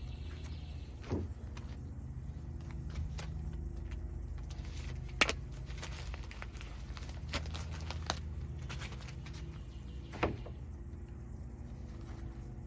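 A handful of sharp snips, the loudest about five seconds in, as mini bolt cutters cut through soft baling wire, over a steady low rumble.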